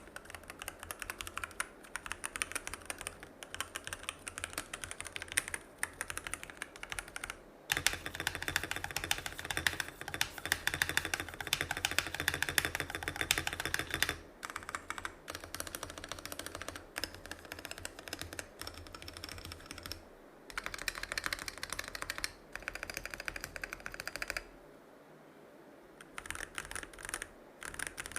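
Stock, unmodded Keychron K6 Pro mechanical keyboard being typed on quickly in bursts, its factory pre-lubed Keychron K Pro switches clacking, damped by PCB foam and a thick silicone case foam. The typing breaks off in short pauses, the longest near the end.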